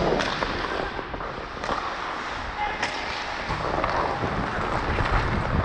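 Hockey skates scraping and carving on the ice, with wind rushing over a helmet-mounted camera microphone, and a few sharp clacks.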